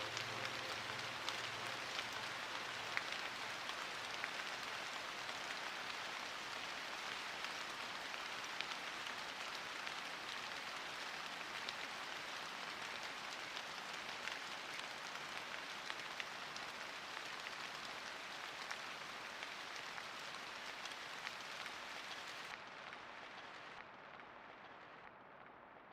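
Steady hiss of falling water, like rain, with fine pattering drops. It fades out gradually over the last few seconds.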